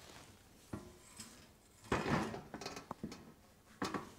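Honda CB900 steel motorcycle frame being shifted and laid on its side on a metal workbench: a few metal clunks and scrapes, the loudest about two seconds in and another near the end.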